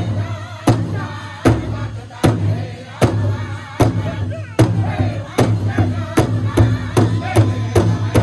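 Powwow drum group singing a song in chorus over a large powwow drum struck in unison by several drummers, with women's higher voices above the men's. The beat is steady at a bit over one stroke a second, then quickens to about twice as fast about five seconds in.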